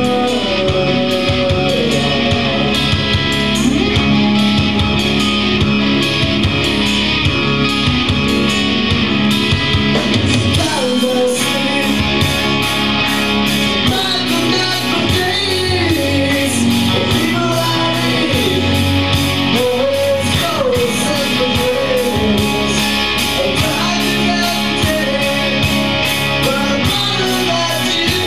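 Live rock band playing: electric guitars, bass and drums with steady cymbal strikes, and a singer's voice over the band, clearest in the second half.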